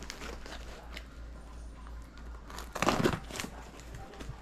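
Cardboard package being opened by hand: plastic wrap and packing tape crinkling and tearing, and cardboard flaps rustling, loudest about three seconds in.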